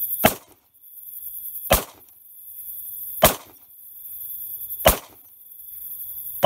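Outro sound effects: five sharp cracks about a second and a half apart, each led in by a high hiss that swells and cuts off at the crack, over a steady thin high tone.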